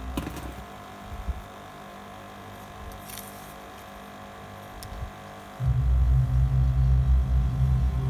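Steady low electrical hum that becomes much louder about five and a half seconds in and stays loud, with a few faint clicks and taps earlier on.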